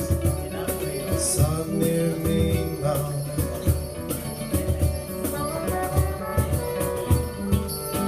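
Live acoustic band playing an instrumental passage between verses: strummed acoustic guitars, a steady hand-played drum beat with jingling percussion, and a brass horn playing held notes.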